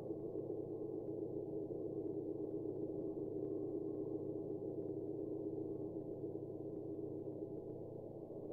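A steady electronic drone made of several low held tones layered together, dipping slightly near the end.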